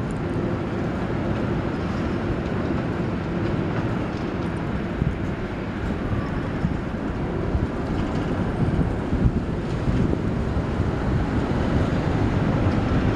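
Konstal 105Na tram approaching along the track, a steady rail rumble that grows slowly louder toward the end.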